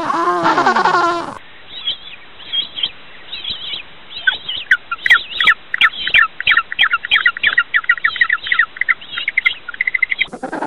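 Penguins calling: a call with several stacked pitches that breaks off about a second and a half in, then short high chirps, sparse at first and coming several a second from about four seconds. The deeper call returns near the end.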